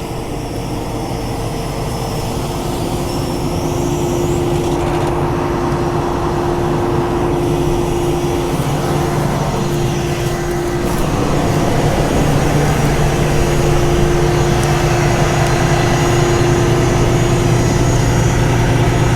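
Combine harvester running while it harvests corn, a steady engine and machinery hum that grows gradually louder over the first dozen seconds and then holds steady.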